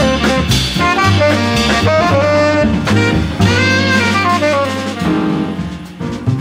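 Jazz quartet recording: saxophone playing a melodic line of quick, changing notes over bass and drums. Near the end the bass drops out and the sound thins before the drums come back in.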